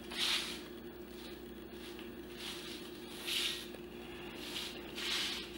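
Offset spatula spreading chocolate buttercream across a cake layer: three soft swishing strokes, one right at the start, one a little past three seconds and one near the end.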